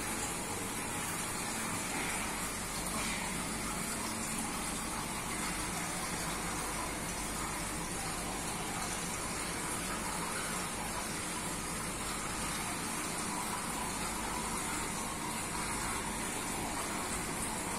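Steady rush of water through a large aquarium's filtration, even and unbroken.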